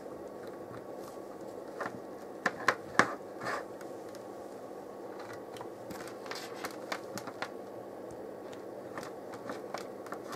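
Sharp clicks and knocks of a test resistor's leads being handled and fitted into a bench power supply's binding-post output terminals, the loudest cluster about two to three and a half seconds in and lighter ticks later. Underneath runs the steady hum of the supply's cooling fan.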